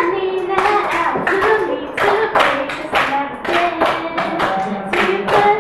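Rhythmic hand claps, about three a second, with a voice singing held notes along with them.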